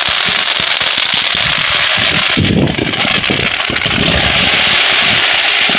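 Ground firework fountain spraying sparks: a loud, continuous hiss packed with rapid crackling.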